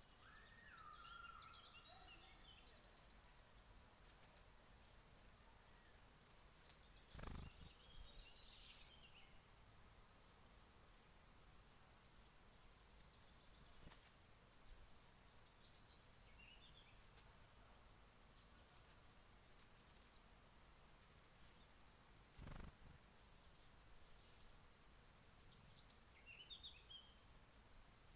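Faint, high-pitched chirps and short calls of small woodland songbirds, scattered throughout, with a short rising whistle about a second in. Two brief low thumps, about seven and twenty-two seconds in.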